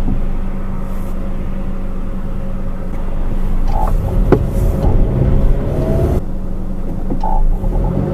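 Inside the cabin of a 2013 Honda CR-V AWD while driving, steady road and drivetrain rumble heard from the rear seat over the rear differential. A faint whine rises in pitch twice, about five and seven seconds in.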